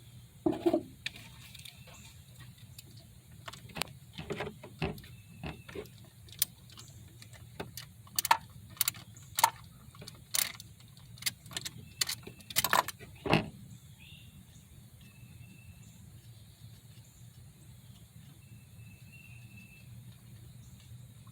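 Hand tools and metal parts clinking and clicking irregularly during work under the hood, several sharp knocks in the first half, then stopping about 13 seconds in, leaving only a low steady hum.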